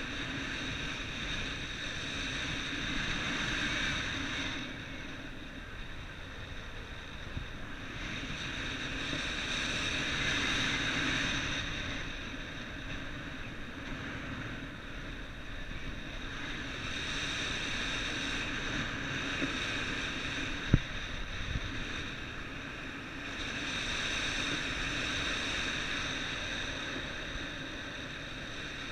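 Wind blowing in gusts, swelling and easing every few seconds, with one sharp knock about two-thirds of the way through.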